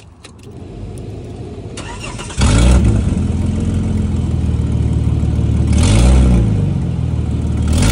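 Holden VY Commodore with a chopped exhaust starting up about two seconds in, then running loudly with two brief blips of the throttle, one near the middle and one at the end.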